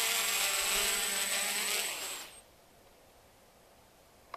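A 6.5-ounce mini quadcopter's motors and propellers buzzing as it hovers just above the ground, then spooling down in a falling whine about two seconds in as it lands and the motors stop.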